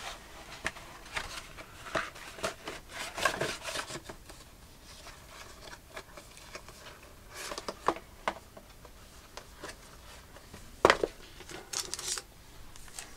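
Hands handling tablet packaging, the cardboard box and clear plastic sleeve rubbing and rustling against a tabletop, with scattered light taps and one sharp knock near the end.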